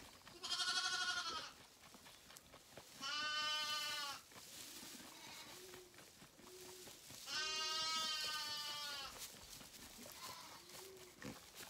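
Zwartbles sheep bleating: three long bleats, the last the longest.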